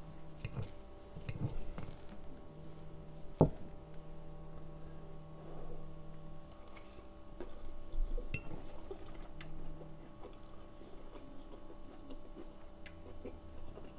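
Metal knife and fork cutting into a fried egg on rice and clicking against a ceramic plate, with one sharp clink about three and a half seconds in, then soft wet chewing sounds. A faint steady low hum underneath.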